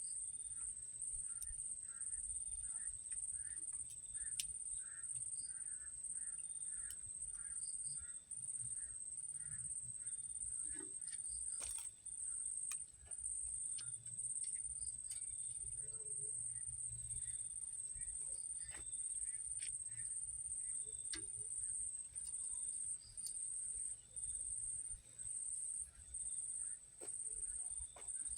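Insects chirping: a steady high-pitched pulsing trill, with fainter repeated calls lower down, scattered clicks and a low rumble underneath.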